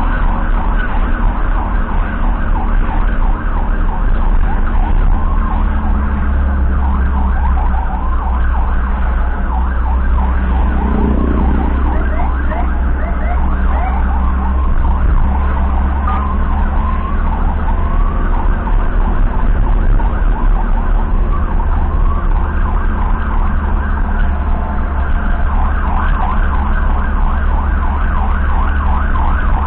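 Emergency sirens on the escorted ambulance convoy, repeating a fast rising-and-falling yelp, over the steady low rumble of the ambulance's engine and road noise heard from inside the cab.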